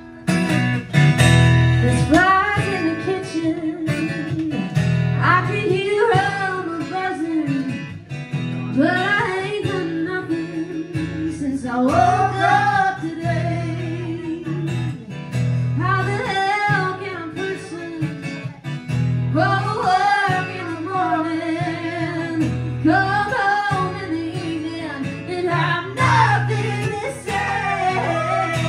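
Acoustic guitar strumming steadily under a wordless lead melody played on harmonica into the vocal microphone, an instrumental break in a country-folk song played live.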